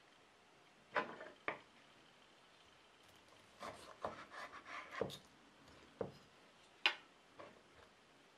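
Fork on a wooden serving board, cutting into baked pork ribs. There are a few sharp taps, a cluster of scraping and clicking a little over halfway through, and a last louder tap near the end.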